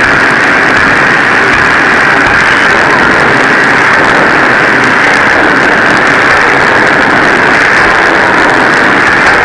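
Loud, steady drone of forge-shop machinery, with a hissing band high in pitch and no distinct hammer blows standing out.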